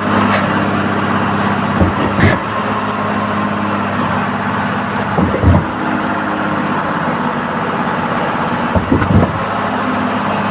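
Truck-mounted concrete pump running: a steady diesel engine drone with a double knock about every three and a half seconds.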